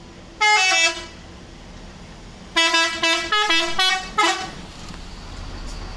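Indonesian bus telolet horn, a multi-tone horn playing a tune: one short note that slides down in pitch, then after about two seconds a quick run of short notes at changing pitches, over a low steady rumble.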